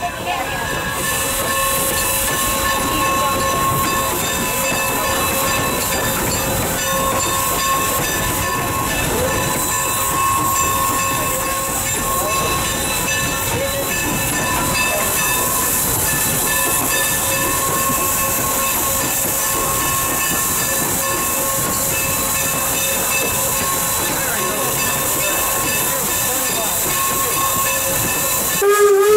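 Norfolk and Western #475, a 4-8-0 steam locomotive, running slowly and steadily, heard up close at its front: a dense mechanical running noise with a steady whine through it. At the very end its steam whistle starts to blow.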